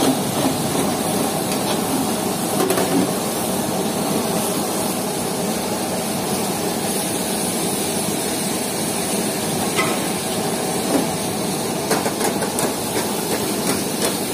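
Busy restaurant cooking line: gas burners running on high flame and oil sizzling in a karahi and a deep-fry wok, a steady hissing rush. A few sharp metal clinks, like a spatula against the pan, cut through it.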